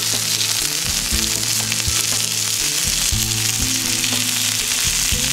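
Seasoned pork loin sizzling on the grill, a steady hiss of fat and juices. Background music plays underneath.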